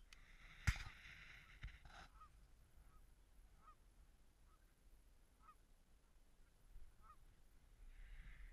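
A few faint, distant Canada goose honks, single calls every second or two. A sharp knock about a second in, followed by brief rustling, is the loudest sound.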